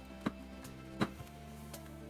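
Background music with a steady held tone, and two sharp knocks about three-quarters of a second apart, the second louder.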